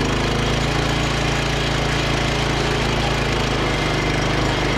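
2017 Rokon Ranger two-wheel-drive motorcycle's single-cylinder engine running steadily under load as it pulls up loose dirt in low gear, its note shifting slightly about three and a half seconds in.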